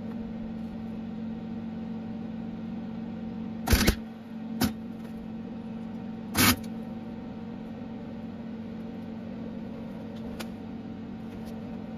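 Lincoln MIG welder striking short tack welds on a steel nut: a brief arc crackle about four seconds in, a shorter one just after, and another about six and a half seconds in, over a steady low hum.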